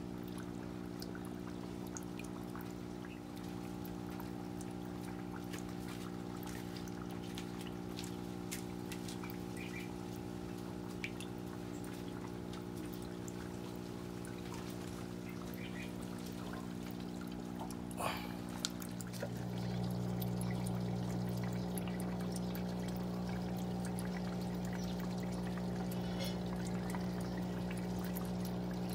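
Water pouring and trickling into a plastic tub over a steady low hum. About 19 seconds in, the hum shifts and grows louder.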